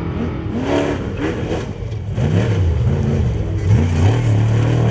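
Off-road race vehicle engine revving hard under acceleration. The pitch climbs again and again with short drops between, as with upshifts, then holds high near the end.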